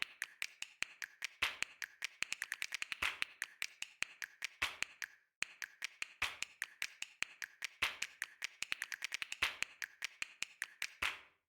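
Fast typing on a keyboard: a quick run of key clicks, several a second, with some louder strokes and a brief pause about five seconds in.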